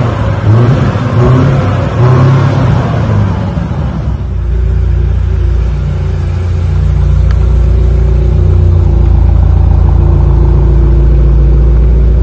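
2021 BMW M5 CS's twin-turbo V8 exhaust revving in uneven blips, then settling about four seconds in into a loud, steady idle.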